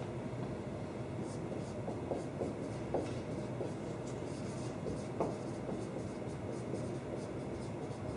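Dry-erase marker writing on a whiteboard: faint squeaks and scratches of the tip as letters are drawn, over a steady background hiss.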